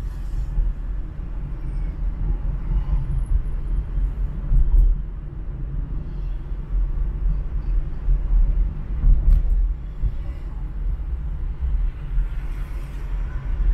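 Low, steady rumble of a car driving on city streets: road and engine noise. Two short sharp clicks, about five seconds in and again about nine seconds in.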